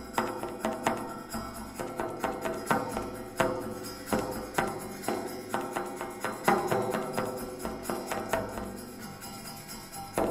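Percussive music: sharp struck hits at an uneven pace, each ringing on briefly with pitched tones.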